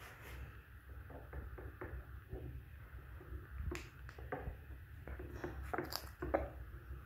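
Cooking oil being poured slowly from a plastic jerrycan into its screw cap to measure it, heard as faint, scattered small clicks and taps of plastic.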